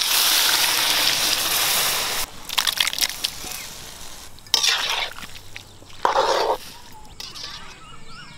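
Chopped ridge gourd tipped from a steel pot into a hot iron kadai of frying masala, landing with a loud rushing sizzle for about two seconds. A few shorter bursts of noise follow as the last pieces are tipped out and the pan is stirred.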